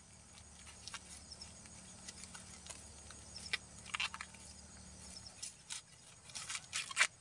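Dry corn husks crackling and rustling as small cobs are handled and peeled by hand: scattered soft crackles, with a few louder ones about four seconds in and near the end.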